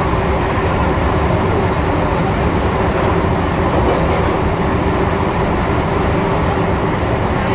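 MTR M-Train electric multiple unit running at speed, a steady rumble of wheels on the track and running gear with faint ticking.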